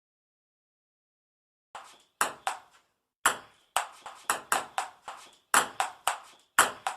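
Dead silence, then, about two seconds in, a ball bouncing: a run of about a dozen sharp hits at an uneven pace of two or three a second, each dying away quickly.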